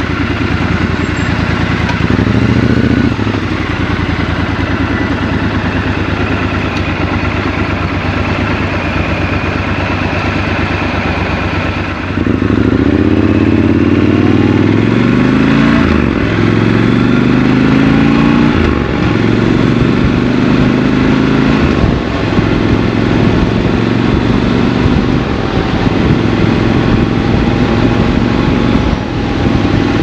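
Triumph Scrambler 1200 XC's parallel-twin engine idling steadily at a standstill, with a brief rise about two seconds in. About twelve seconds in it pulls away, its pitch rising through three upshifts, then it runs steadily at road speed.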